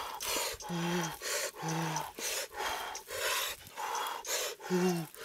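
A man breathing heavily in quick, rhythmic puffs, about two breaths a second, with short low voiced grunts between some of them.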